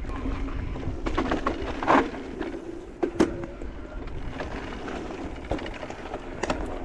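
Electric mountain bike (Polygon Siskiu T6E) rolling down a dirt trail: steady tyre and wind noise on a helmet camera, with sharp knocks and rattles as the bike hits bumps, the loudest about two seconds and three seconds in.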